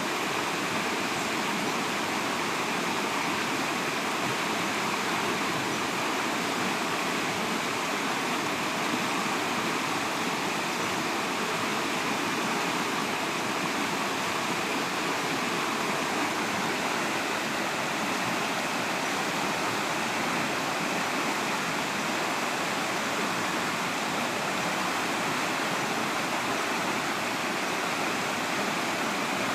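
Steady rushing of water from a waterfall and its rocky stream, an even noise with no change throughout.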